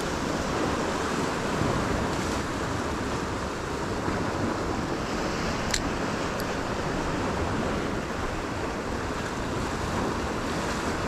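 Ocean surf washing and breaking over shoreline rocks in a steady rush, with a little wind on the microphone. Two faint brief ticks sound about halfway through.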